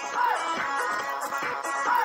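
Dance music playing, with a short falling tone that recurs about every second and a half.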